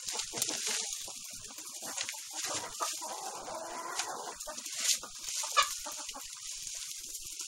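Hens clucking while a pitchfork digs into and turns over deep compost bedding, its tines scraping and knocking through the compost in short strokes.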